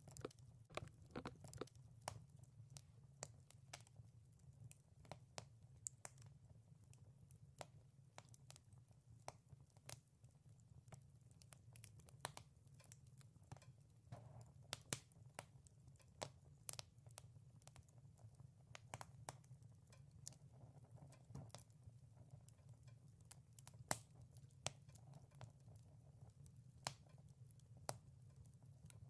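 Wood fire crackling in a wood-burning stove: sparse, irregular sharp pops and snaps over a low steady hum.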